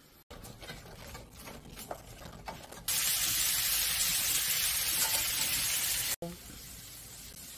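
Thin slices of beef brisket sizzling hard in a grill pan as chopsticks turn them. The loud, even hiss starts suddenly about three seconds in and cuts off about three seconds later. Before it there are only soft clicks and handling noise.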